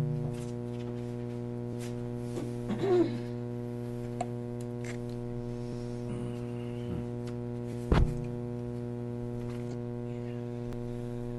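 Steady electrical mains hum on the meeting room's microphone and sound system, with a few faint rustles and a single sharp thump about eight seconds in.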